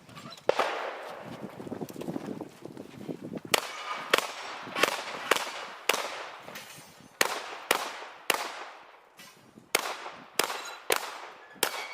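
Shotgun firing: one shot, then a rapid string of about a dozen shots roughly half a second apart, each with a fading echo.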